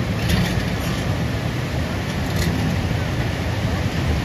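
Caterpillar tracked excavator's diesel engine running steadily while it works its bucket in the river, mixed with the steady rush of white-water rapids.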